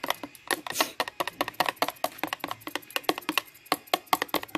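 Beaten eggs being whisked in a thin plastic tub: a utensil clicking quickly and unevenly against the plastic, several strokes a second.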